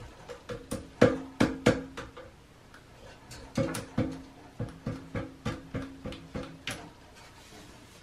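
American crow tapping its bill against its perch: two runs of sharp taps, about three a second, the first running through the first two seconds and the second from about three and a half seconds to about seven.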